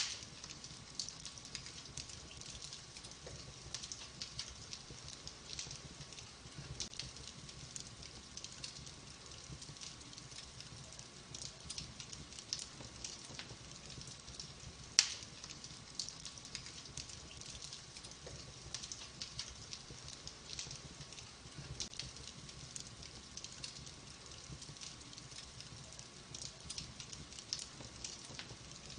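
Wood fire in a fireplace crackling, with frequent small pops and one sharper, louder pop about halfway through.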